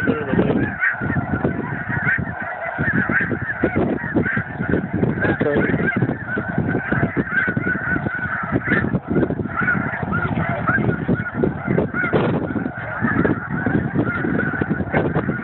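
A large flock of snow geese calling continuously, many high honking calls overlapping into one unbroken din.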